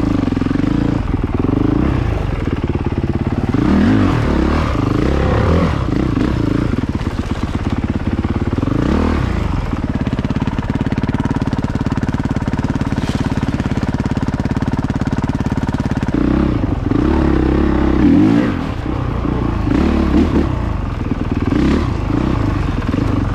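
Dirt bike engine being ridden on a trail, the throttle opening and closing so the engine note rises and falls again and again, with a steadier stretch of even throttle near the middle.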